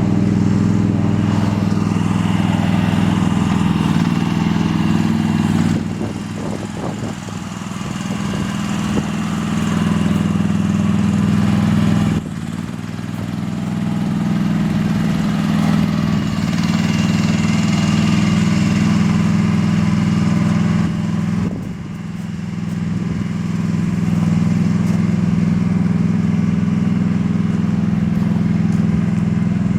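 Mini excavator's diesel engine running steadily, its note dropping back briefly about six, twelve and twenty-two seconds in before picking up again.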